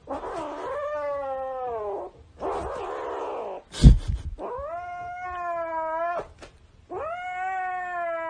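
Kitten yowling in three long drawn-out cries while guarding a plush toy that a hand is reaching for. The first cry falls in pitch, a rough noisy stretch comes between the first two, and a loud bump sounds about four seconds in.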